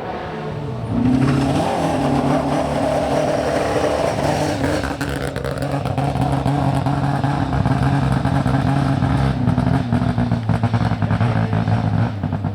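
Rally car engine pulling hard at steady high revs, growing louder, with a rapid crackle of sharp pops over it from about four seconds in, then fading off right at the end.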